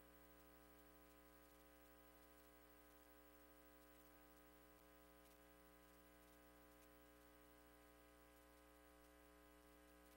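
Near silence: a faint, steady electrical hum made of many even tones, with light hiss.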